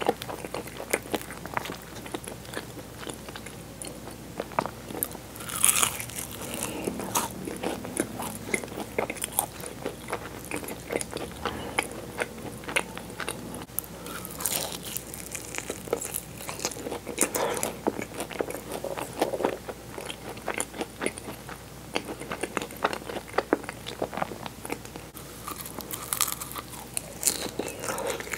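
Close-miked eating of flaky puff-pastry egg tarts: crisp bites into the pastry shell crackling and crunching, with chewing in between. A few bites, about 6, 14 and 26 seconds in, are louder.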